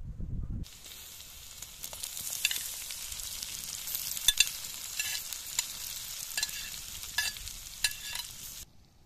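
Food frying in hot oil in a pan, a steady sizzle broken by sharp pops and clicks. It starts abruptly just under a second in and cuts off shortly before the end.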